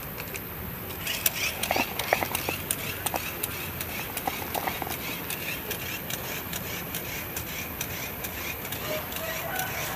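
Battery-powered toy bubble gun running: a steady motor whir with an even clicking of about three or four ticks a second as it shoots out a stream of soap bubbles.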